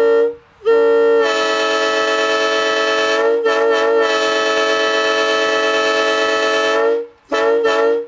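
Nathan M3 three-chime locomotive air horn blowing its chord in long blasts. It cuts out briefly just after the start, stutters on and off in quick toots around the middle, and ends with two short toots.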